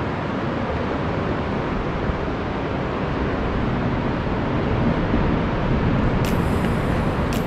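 Steady rush of ocean surf mixed with wind buffeting the microphone. Two sharp clicks come near the end.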